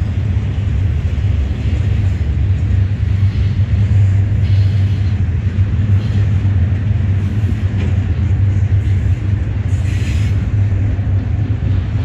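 Double-stack intermodal freight train rolling past at close range: a steady, loud low rumble of the cars' wheels on the rails, with a couple of brief higher-pitched squeals from the wheels, about four seconds in and again about ten seconds in.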